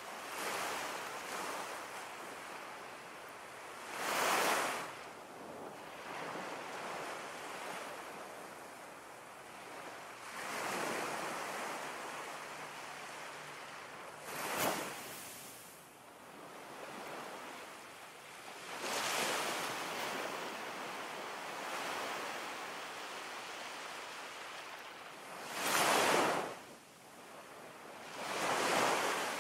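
Ocean waves washing in and drawing back, a steady rush that swells and falls every few seconds, with one sharper, briefer splash about halfway through.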